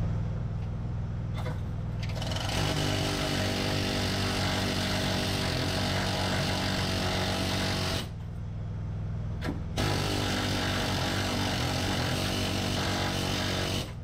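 Carbon arc gouging on a skid steer axle tube: a loud steady hiss that starts a couple of seconds in, cuts out about eight seconds in and starts again near ten seconds, over the low steady hum of an engine running.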